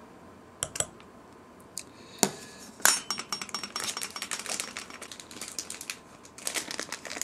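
A metal measuring spoon clinking against a measuring jug as a spoonful of kinako is tipped in, then a quick run of light clicks and plastic crinkles as the kinako bag is handled and put down.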